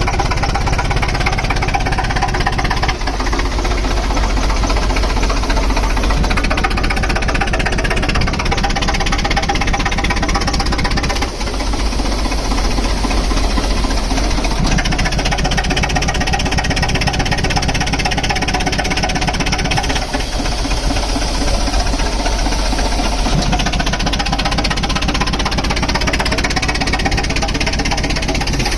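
Engine-driven heavy machinery running steadily with a rapid, dense knocking clatter.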